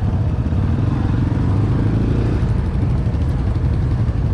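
ATV engine running steadily with a constant low drone.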